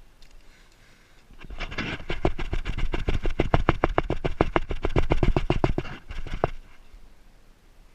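Airsoft rifle firing one long fully automatic burst of about five seconds, a rapid, even string of sharp clacks at roughly seven shots a second that stops abruptly.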